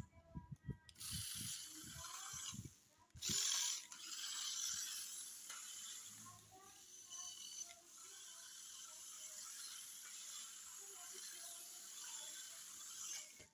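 Toy remote-control off-road car's small electric motor and plastic gearbox whirring and rattling in spurts, with a few low knocks early on, stopping abruptly at the end.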